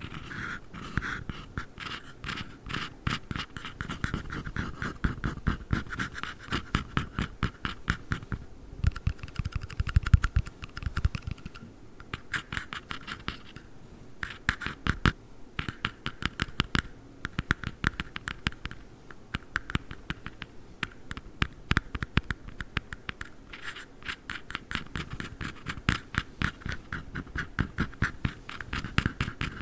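Fingernails tapping and scratching fast on a black ring box. The clicks come in quick runs with brief pauses between them.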